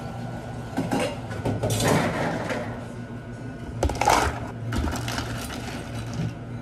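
Ice cubes scooped and tipped into a clear plastic cup, with rattling clatters of ice and the loudest one a little past halfway, over a steady low hum.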